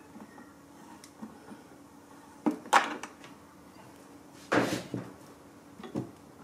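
Handling knocks and a clatter as the RC yacht's plastic hull and metal keel are lifted and set into its display stand: a couple of sharp knocks about two and a half seconds in, a louder rattling clatter around four and a half seconds, and a single knock near the end.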